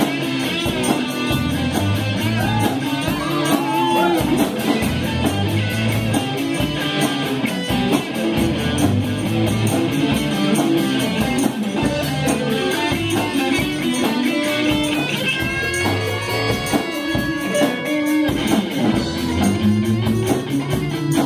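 Live rock band playing a song, led by strummed electric guitars.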